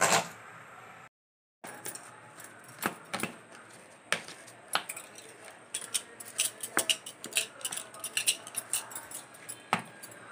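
A steel ladle mashing hot boiled potatoes in a steel bowl, clinking and scraping against the bowl in quick, irregular taps. The sound cuts out briefly about a second in.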